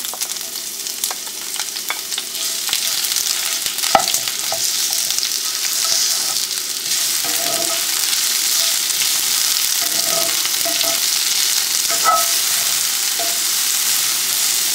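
Sliced onion and green pepper sizzling in hot oil in a cast-iron skillet, stirred with a wooden spatula, with a few sharp clicks as it knocks the pan, the loudest about four seconds in.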